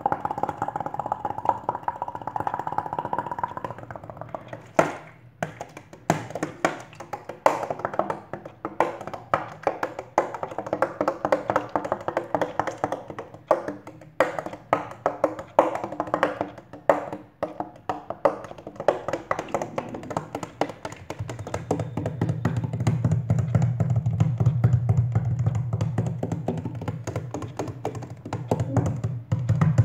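Fingers and palms drumming rhythmic beats on a plastic water bottle: fast patterns of quick taps and slaps. In the last third a steady low sound sits under the beats.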